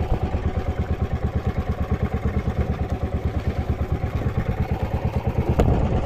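Engine idling with a steady, even pulsing of about six beats a second, and a single sharp knock near the end.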